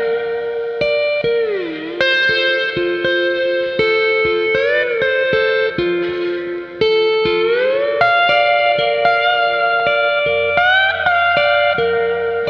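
Guitar music in a Hawaiian steel-guitar style: long held notes that slide up and down between pitches over short plucked notes.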